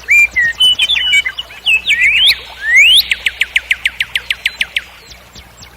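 Nightingale singing: a phrase of varied whistled notes and two rising whistles, then a rapid trill of repeated notes, about ten a second, that fades out near the end.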